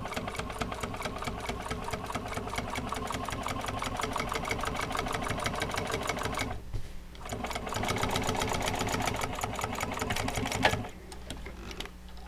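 Juki sewing machine stitching a seam through upholstery fabric in fast, even needle strokes over a steady motor hum. It stops briefly just past the middle, runs again, and stops near the end, followed by a few light clicks.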